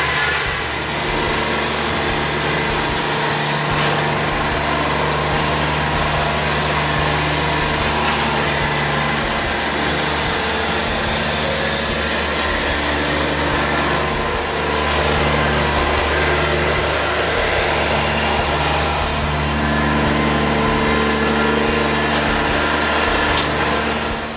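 Kubota compact tractor's diesel engine running as it drives and drags a box blade, its pitch shifting with brief dips about a second in and around the middle. It fades out near the end.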